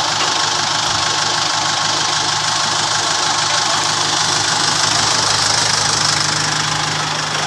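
Tractor engine idling steadily with an even, unchanging running sound.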